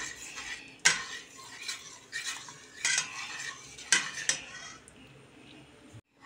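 A metal spoon stirring thick tomato sauce in a stainless steel pot, scraping round the pot and knocking sharply against its side several times.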